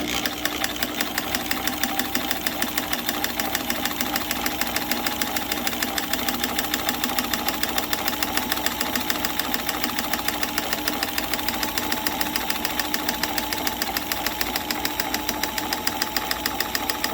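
Sears Kenmore 158.1703 sewing machine running at steady speed with its 36149 monogrammer attachment: a fast, even needle clatter of about eight stitches a second over a constant motor hum.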